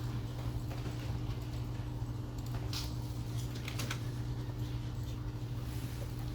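Office ambience: a steady low hum, with a short run of light clicks like keyboard typing about three seconds in.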